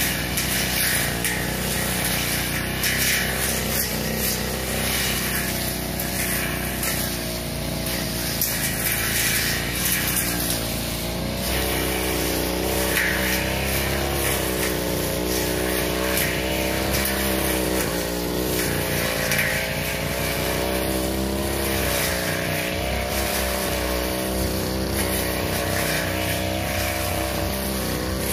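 Two-stroke 328-type backpack brush cutter running at high speed with a long metal blade cutting through grass and weeds; the engine pitch wavers up and down as the blade takes the load.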